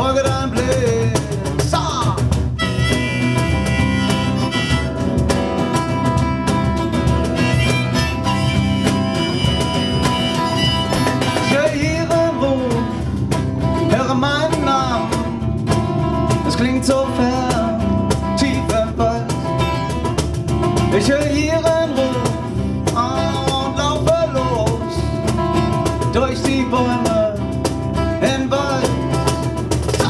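Live acoustic band music: acoustic guitar and percussion with a wavering lead melody line over them.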